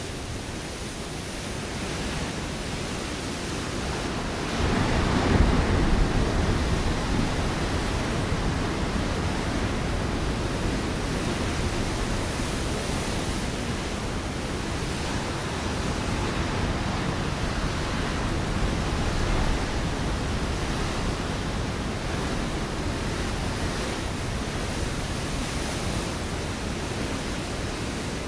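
Ocean waves breaking on a rocky shore: a continuous rushing wash of surf, with one louder wave crashing about five seconds in, and smaller swells after.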